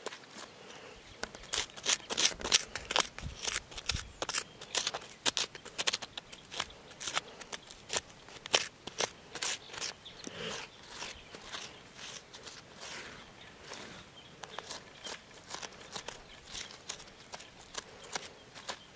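Rapid, irregular crunching and scraping, several sharp clicks a second, loudest about two to three seconds in.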